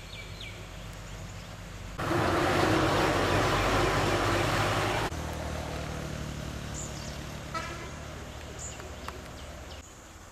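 Road traffic: a vehicle horn sounds briefly at the start, then a vehicle goes by with a loud rush of road noise for about three seconds, stopping abruptly. A steady low engine hum follows, with a few short bird chirps.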